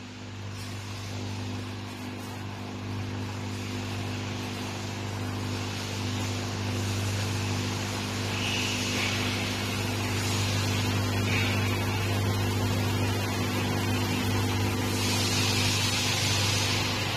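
Feeding conveyor and microwave dryer for black soldier fly larvae running: a steady electric hum under a hiss that slowly grows louder.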